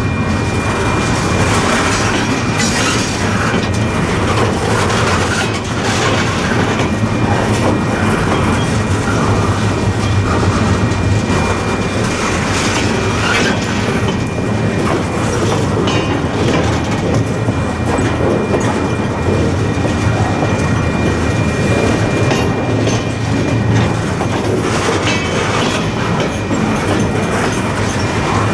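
Freight train of loaded flatcars rolling past close by: a steady heavy rumble of steel wheels on the rails, with scattered clicks and clacks. A thin, steady high tone runs through it.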